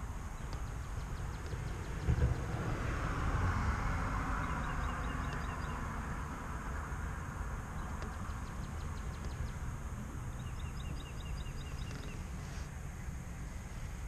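Outdoor ambience with a vehicle passing: a hazy rush swells about two seconds in and fades over the next few seconds, over a steady low rumble. Several short runs of quick, evenly spaced high chirps come and go, and there is a single low thump about two seconds in.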